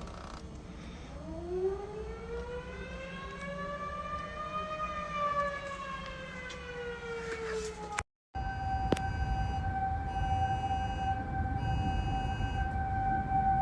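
Model 5B outdoor warning siren winding up to its peak pitch over about four seconds, then slowly winding down. After a cut about eight seconds in, Federal Signal 2001 tornado sirens hold a steady tone, with the higher pulsing beeps of a phone's wireless emergency alert coming and going over them.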